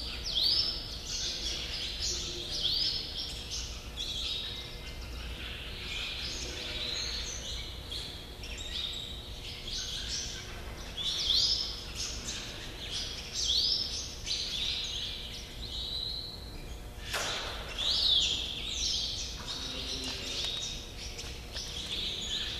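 Small birds chirping over and over, short high calls that sweep up and down, over a steady low hum. One sharp click about three-quarters of the way through.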